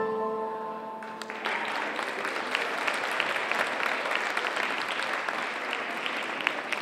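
The last sustained notes of the dance music die away, and about a second and a half in an audience starts applauding, a steady patter of clapping with sharp individual claps standing out.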